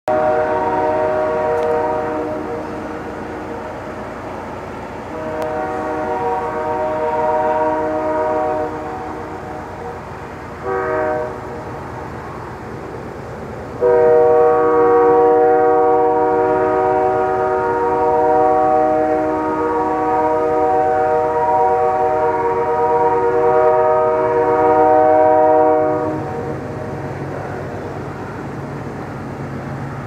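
Nathan Airchime K3L horn on an approaching CN GE C44-9W locomotive sounding a chord in four blasts: two long, one short, and a final long one held about twelve seconds. This is the standard long-long-short-long grade-crossing signal. After the last blast a low rumble of the oncoming locomotives takes over.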